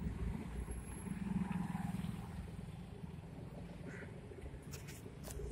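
Town street traffic: a motor vehicle's engine passes close by, swelling about a second in and fading, over a steady hum of traffic. A few sharp clicks near the end.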